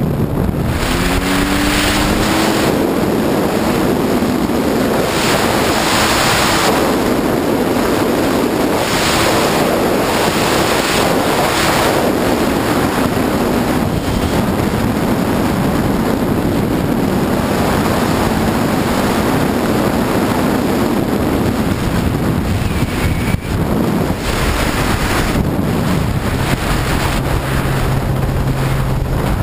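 Sea-Doo personal watercraft under way: water rushing along the hull and wind buffeting the microphone over the engine. The engine's pitch rises about a second in as it picks up speed, and a steady low engine hum comes through near the end.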